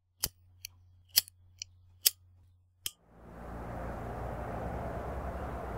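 A cigarette lighter flicked repeatedly: about seven sharp, irregular clicks over a faint low hum. About three seconds in, a steady rushing background noise fades up and holds.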